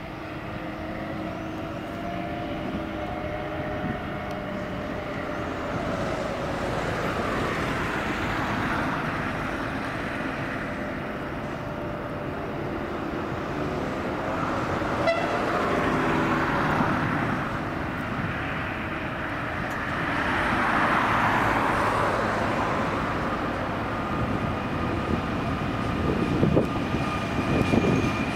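Fertagus series 3500 double-deck electric multiple unit arriving at a station platform: a steady rumble of wheels and traction equipment that grows louder as it comes in, with pitched motor whines at first. Near the end, as it slows to a stop, steady high whining tones and a few knocks from the wheels.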